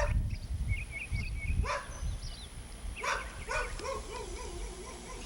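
An animal calling outdoors: a few short sharp calls, then a longer wavering call in the second half. Birds chirp in short phrases, and wind rumbles on the microphone throughout.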